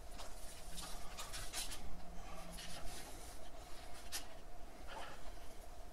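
Hands scraping and pressing gritty potting mix of peat moss and perlite into and around a plastic pot, a string of short, scratchy rustles.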